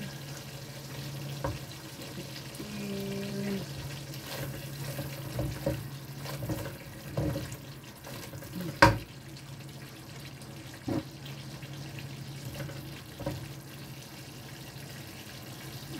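Silicone spatula stirring thick sweet-and-sour sauce simmering in a nonstick wok, with scattered knocks of the spatula against the pan, the loudest about nine seconds in, over a steady low hum.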